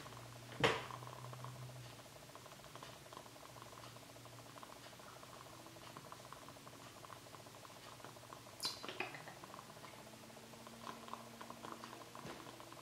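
Quiet room tone at a study desk: a steady low hum with faint small ticks and scratches, broken by a sharp click about a second in and a short falling swish near nine seconds.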